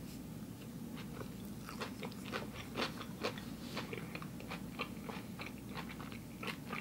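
Close-miked chewing of a mouthful of food, with irregular small crunches a few times a second.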